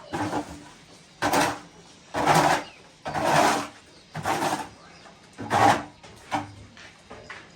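A series of about six rough scraping or rubbing strokes, each under half a second, coming roughly once a second.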